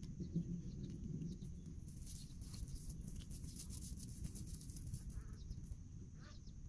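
Outdoor ambience: a steady low rumble and a steady high insect buzz, with a light crackling rustle in the middle as nylon cast-net mesh is handled, and faint bird calls near the end.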